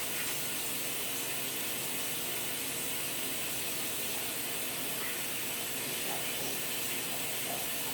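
Steady, even hiss of background noise, with no distinct event.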